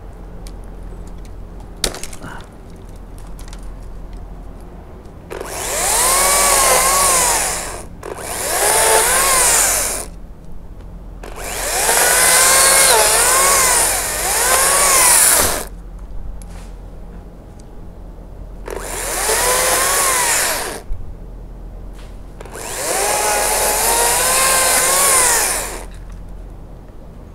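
Makita battery top-handle chainsaw cutting persimmon wood in five bursts of two to four seconds, its whine wavering in pitch as the chain loads up in the cut, stopping between cuts.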